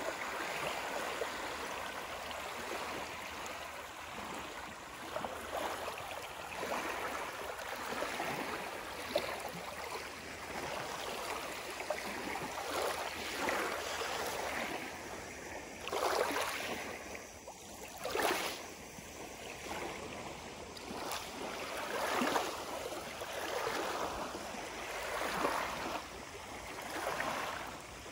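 Small lake waves lapping and washing onto a pebble shore, swelling in repeated surges every two to three seconds.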